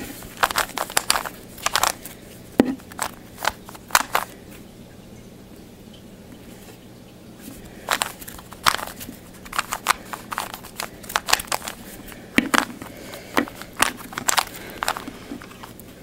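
Layers of a plastic Rubik's Cube being twisted by hand: quick runs of clicking, scraping turns, with a pause of a few seconds near the middle before the turning starts again.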